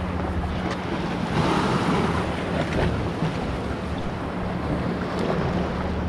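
Sea water washing and lapping against the edge of a concrete pier, with wind buffeting the microphone; a louder wash of water comes about one and a half seconds in. A low steady hum runs underneath.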